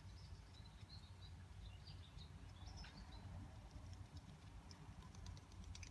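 Near silence: faint squeaks and light rubbing of a cotton alcohol swab wiping brass dust off the end of a brass airsoft inner barrel, over a low steady hum.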